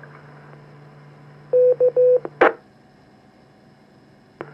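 Amateur radio FM repeater heard through the transceiver's speaker: after the operator unkeys, it sends a courtesy tone of a long, a short and a long beep (Morse 'K'), then a short burst of squelch-tail noise as it drops. A steady low hum runs under it, and a sharp click near the end marks the transmitter keying up again.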